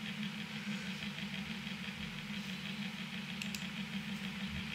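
A steady low hum with a faint hiss, with a few faint mouse clicks about two and a half and three and a half seconds in.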